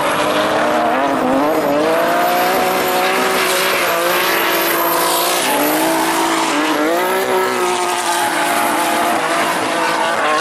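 Drift car engines held at high revs, their pitch rising and falling as the throttle is worked, over the continuous squeal of tyres spinning and sliding on asphalt.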